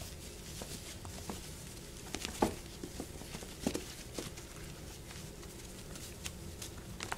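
Puppies scrambling in a plastic tub: light, irregular scratches and taps of claws on the plastic and rustling of the puppy pads under their paws.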